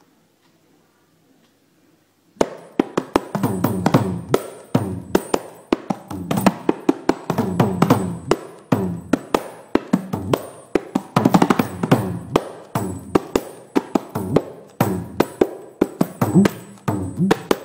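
Kanjira, the South Indian frame drum, playing a korvai, a composed rhythmic cadence pattern. After about two seconds of quiet, fast hand strokes begin and run on without a break, several a second, mixing sharp slaps with deeper bass strokes.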